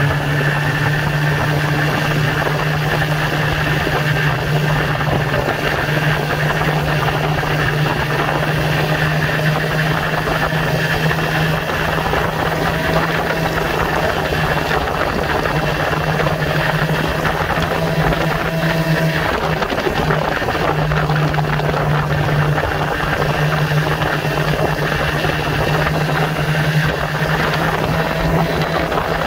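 Snowmobile engine running steadily at cruising speed, heard from the rider's own sled, a constant low drone under a rush of noise.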